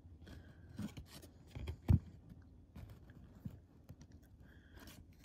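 Trading cards being handled in a stack, turned over and slid one behind another, with light card-stock flicks and scrapes. A single dull thump about two seconds in is the loudest sound.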